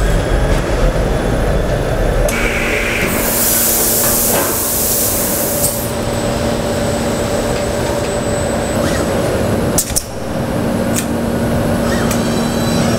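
Car assembly-line machinery running, with a steady hum, scattered clanks and knocks, and a burst of hissing air about three seconds in.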